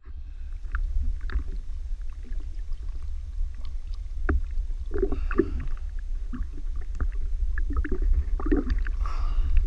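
Lake water lapping and splashing around a camera held at the surface, with irregular small splashes and knocks over a steady low rumble. A louder splash comes near the end.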